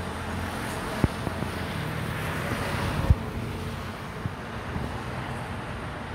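Wind rushing over the microphone as a steady hiss, with a couple of short sharp knocks, about one second and three seconds in.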